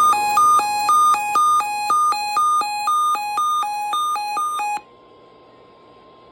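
Weather-radio alert alarm beeping in a fast, repeating high-low pattern of harsh electronic tones, signalling an incoming watch; it cuts off abruptly about three-quarters of the way through. A fainter steady tone near 1 kHz, the broadcast's 1050 Hz warning alarm tone, sounds beneath it and stops about a second later, leaving radio hiss.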